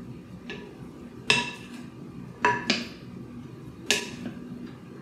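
Wooden spoon stirring a chopped salad in a glass mixing bowl: soft scraping of the mix, with several sharp, briefly ringing clinks about a second apart as the spoon knocks against the glass.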